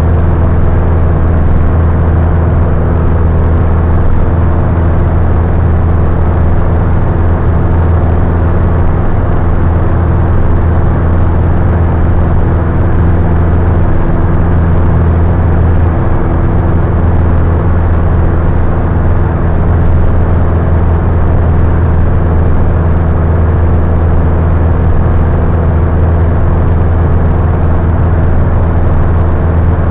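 Piston engine and propeller of a high-wing light aircraft, a loud steady drone heard inside the cabin, holding one even pitch in steady flight.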